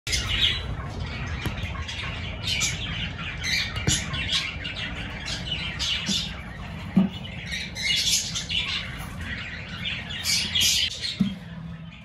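Cockatiel calls, many short repeated bursts, with a few sharp knocks in between, about 4, 7 and 11 seconds in.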